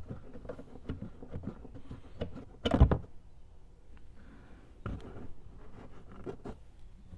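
Hand tools and metal hardware being handled: scattered clicks and knocks, with one louder clatter about three seconds in.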